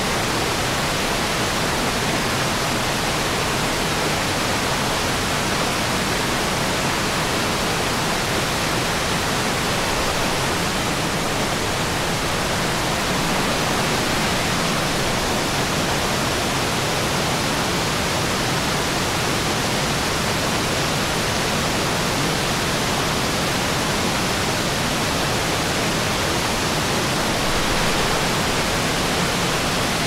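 Mountain creek cascading over boulders in a run of small falls: a steady, even rush of water.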